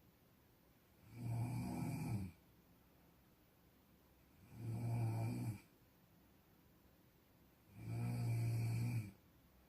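Snoring: three low-pitched snores, each about a second long, coming about every three seconds with quiet breathing pauses between them.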